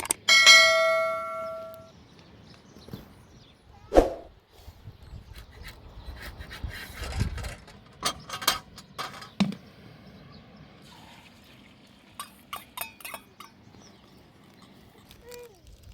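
A single metallic ring, like a struck bell or piece of metal, dying away over about a second and a half. About four seconds in comes a dull thump, then scattered light clicks and knocks.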